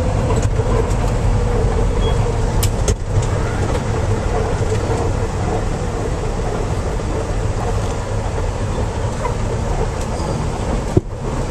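Semi truck's diesel engine running with road noise, heard inside the cab as the truck slows and turns, steady throughout apart from a few faint clicks about three seconds in and a brief dip with a click near the end.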